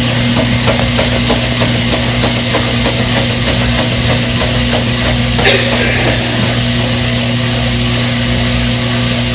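Front-load washing machine running: a steady motor hum with irregular light knocks from the tumbling drum, and a brief hiss about halfway through.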